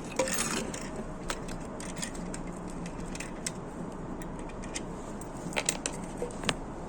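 Scattered light clicks and clinks of metal parts and tools being handled, over a steady background hiss.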